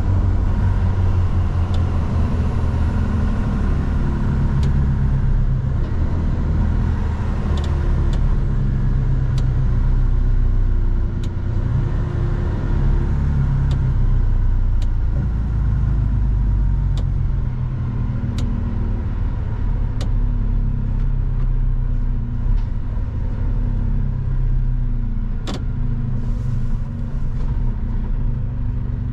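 Mercedes-Benz Actros truck on the move, heard from inside the cab: a steady low diesel engine drone under road and tyre noise, its pitch shifting a few times. Occasional faint sharp ticks, the sharpest about 25 seconds in.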